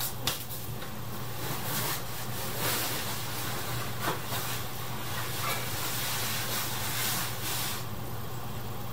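Soft chewing and mouth sounds of someone eating pizza over a steady low hum and hiss, with a few small clicks and rustles.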